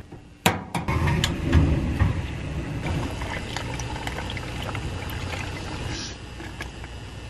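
Hot water poured from an enamel mug into a rubber hot-water bottle, pouring and filling and then easing off about six seconds in. There is a short knock about half a second in.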